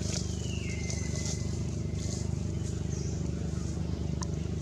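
A steady low hum, like an engine running, with a thin whistle that falls in pitch over about a second and a half near the start, and a few faint clicks.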